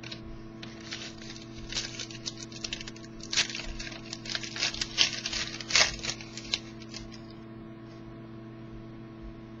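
Trading cards and their pack wrappers being handled: a run of light, irregular rustles and clicks for about seven seconds, then it stops.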